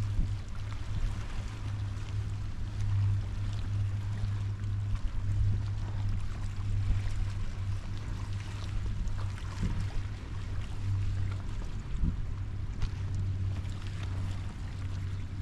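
Outdoor wind and water noise: a steady low rumble with an even hiss over it, and a few soft thumps.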